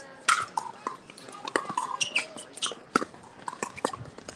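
Many irregular sharp pops of pickleball paddles striking balls, several to the second with no steady rhythm.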